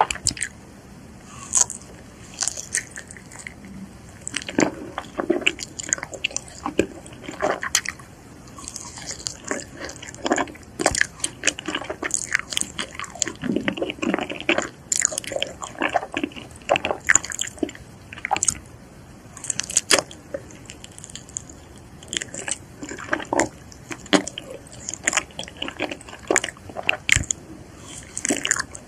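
Close-miked biting and chewing of soft mochi ice cream, with many short, sharp wet mouth clicks and smacks.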